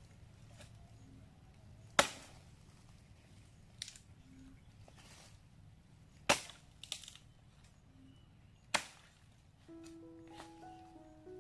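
A long-handled bush knife chopping dry branches: three sharp chops a few seconds apart, with a couple of lighter knocks between them. Background music with a melody comes in near the end.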